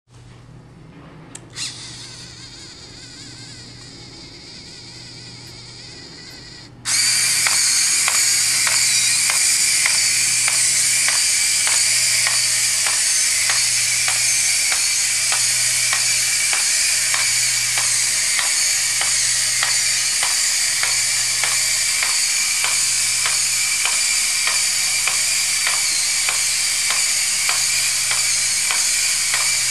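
Four leg servo motors of a small quadruped robot whining as it walks in a trot gait. The feet tick on the tile floor about twice a second. The loud whine switches on suddenly about seven seconds in, after a quieter hum and a single click.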